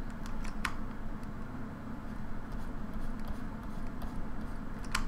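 Quiet room tone with a steady low hum, broken by a few light clicks of a computer keyboard or mouse about half a second in and again near the end.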